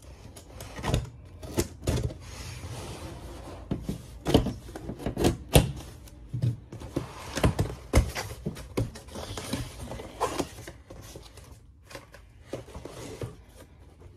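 A long mailer bag being handled and turned on a tabletop: irregular rustling and crinkling of the packaging with scattered sharp knocks and taps.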